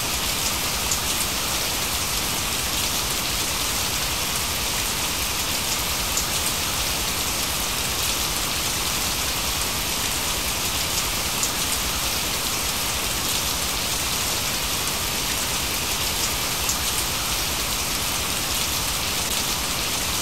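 Steady rainfall with scattered drop ticks, used as the cover sound for a subliminal track with affirmations layered beneath it.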